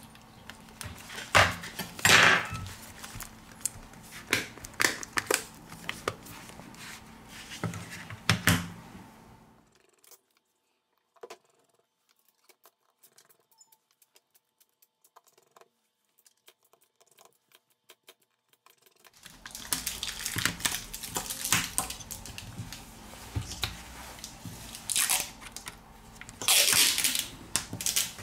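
Sharp clicks and knocks of an UmiDigi Plus's back housing being pressed and snapped onto its frame by hand, with rubbing and handling noise. Near silence for several seconds in the middle, then more clicks, taps and scraping as the phone is handled on the bench.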